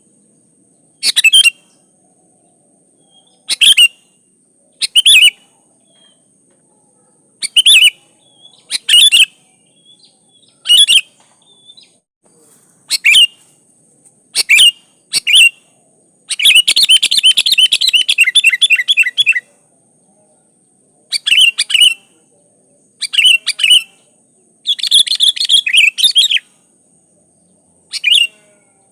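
Sooty-headed bulbul (kutilang) singing: short bubbly phrases repeated every second or two, with a longer rapid chattering run about halfway through and a shorter one near the end.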